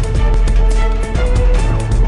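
Background music with a heavy bass and a fast, dense beat.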